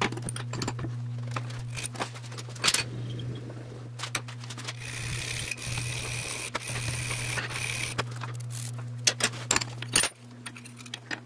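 Hand filing of weld built up on the steel lugs of a splined hub held in a bench vise: metal scraping strokes with a longer scraping stretch in the middle, and sharp metallic clicks and taps as the file and part are handled. The lugs are being filed down to fit without play. A steady low hum runs underneath.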